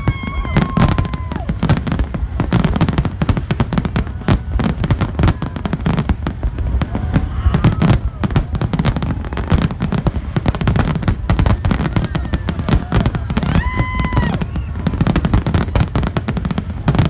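Fireworks display: a continuous, rapid barrage of bangs and crackles. A short held pitched note rises above it twice, near the start and again about 14 seconds in.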